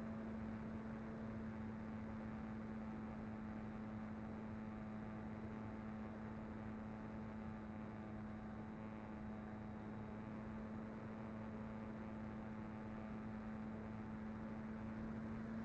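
Brushless electric motor and pusher propeller of a Mini Talon RC plane in flight, heard through the onboard camera: a steady, even-pitched hum with a hiss underneath.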